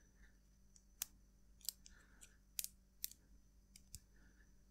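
Faint, scattered clicks and taps, about five in all, from a plastic cable tie being pushed through and handled while a bicycle chain guide is fitted.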